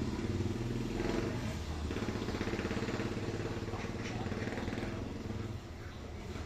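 An engine running steadily with a constant hum, a little quieter near the end.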